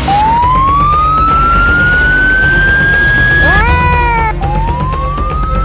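Police car siren wailing, its pitch climbing slowly for about three and a half seconds, then a short swooping up-and-down tone, then a second slow climb, over background music.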